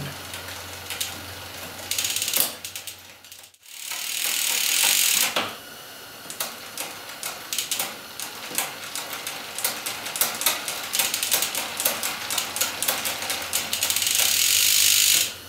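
Bicycle drivetrain turned by hand on a repair stand: the chain runs over the new chainrings and the rear cassette with ratcheting freehub clicks and gear-change clicks, with two louder spells of steady chain running about four seconds in and near the end. It is a shifting test after new chainrings are fitted, and the gears change cleanly.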